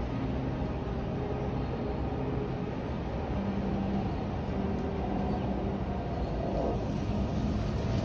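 Wind blowing, a steady low rumble of wind buffeting the microphone, with a faint hum underneath.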